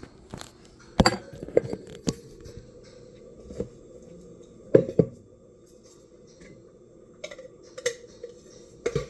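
Hard plastic knocks and clinks from an OXO burr coffee grinder being tapped and handled to shake loose grounds caught inside, a few sharp knocks at irregular intervals with short ringing.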